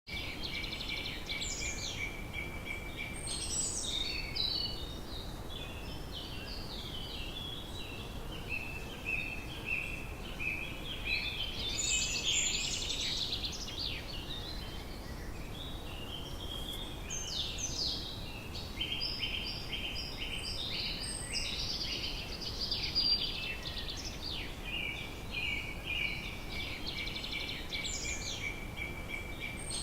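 Outdoor evening ambience: many birds chirping and trilling at once in a dense, unbroken chorus, over a low steady background hiss.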